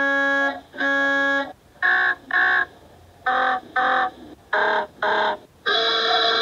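A run of cartoon lorry horn sound effects, one after another: two long steady blasts, then three pairs of short honks, each pair a different horn, then one longer, brighter blast near the end.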